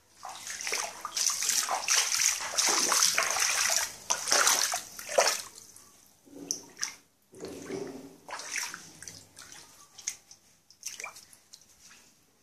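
Water splashing and sloshing on a flooded tiled floor, continuous for about five seconds, then in short bursts.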